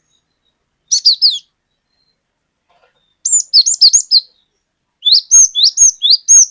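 Cinereous tit (glatik batu) singing its repeated 'wucit wucit' song: three short runs of quick, high, paired whistled notes, with brief pauses between them.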